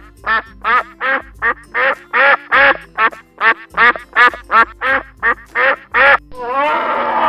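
A duck quacking in a fast, even series of short calls, about three a second, over faint background music. The quacks stop about six seconds in, and a loud rushing noise takes over near the end.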